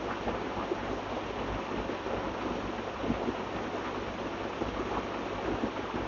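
Water being poured off a bowl of cleaned sole fish: a steady splashing wash of water with small uneven clicks from the bowl and fish.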